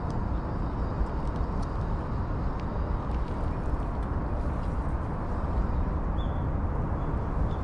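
Cat eating from a metal plate, faint clicks of chewing and licking, over a steady low rumble of background noise.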